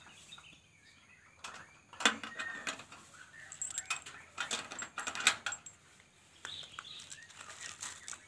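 Sharp clicks, knocks and rattles of a wire-mesh aviary door and its metal latch being handled, loudest about two seconds in and again about five seconds in, with a few faint bird chirps.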